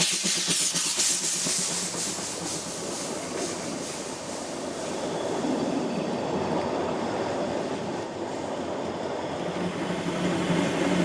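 Narrow-gauge steam train running along the track, its wheels clattering over the rails. A quick, even pulse in the first couple of seconds fades out.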